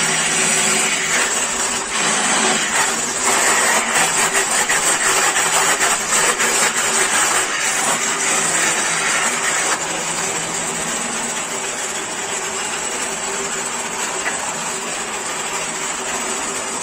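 Schulz FSB16 bench drill press running with a steady motor hum, its bit boring into a hardwood stool leg with a loud, uneven cutting noise for the first ten seconds or so, after which the machine runs on more quietly and evenly.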